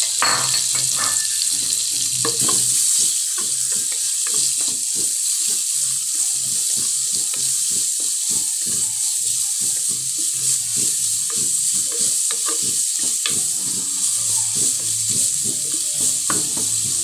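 Sliced onions sizzling in hot oil in a clay pot, with a wooden spatula stirring them and scraping and knocking against the pot many times.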